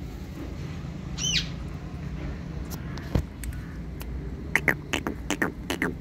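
A ringneck parakeet gives one short arching squawk about a second in, then a quick burst of sharp, clipped calls in the last couple of seconds, over a steady low background hum.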